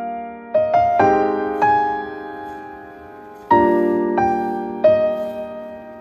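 Slow, soft solo piano background music: notes and chords struck a few times, each left to ring and fade, with a pause of a couple of seconds near the middle before the next chord.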